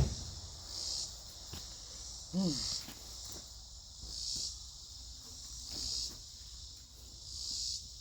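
Chorus of insects trilling, swelling and fading about every second and a half to two seconds. A short wavering vocal sound comes about two and a half seconds in, with a few faint knocks.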